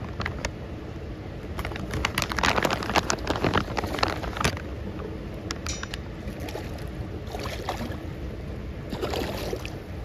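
Fish splashing and thrashing at the surface of a hatchery pond, in a loud cluster of splashes about two to four and a half seconds in and again near the end, over a steady low rumble.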